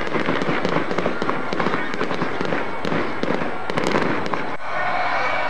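Aerial fireworks display bursting and crackling in a dense, continuous stream of rapid bangs and crackles. The crackling cuts off abruptly about four and a half seconds in, and a different sound with sustained pitched tones takes over.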